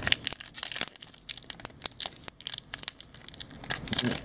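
Wrapper of a 2019-20 SP Authentic hockey card pack crinkling and crackling in the hands as it is torn open: a dense run of short, sharp crackles, heaviest near the start and again near the end.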